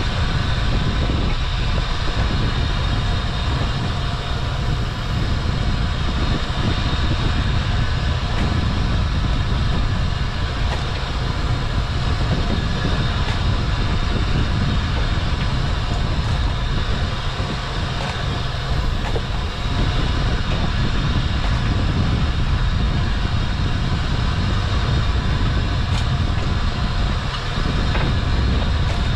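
Small fishing boat's engine running steadily under the deck work, with faint clicks and knocks here and there.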